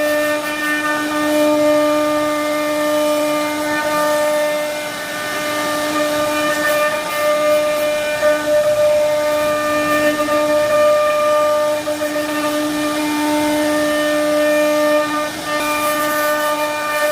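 CNC router spindle running at a steady high speed while carving wood, a constant whine with a hiss of cutting under it.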